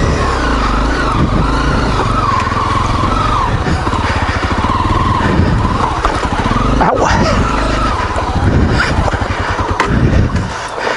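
Single-cylinder four-stroke dual-sport motorcycle engine running on a rough rocky trail, its revs rising and falling constantly as the throttle is worked, with a few knocks mixed in.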